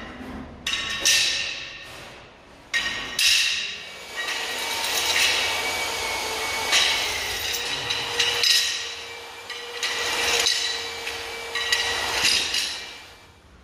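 Ceramic skirting tiles being tapped and knocked into place, an irregular series of sharp knocks and clinks each ringing briefly, about one every second or so.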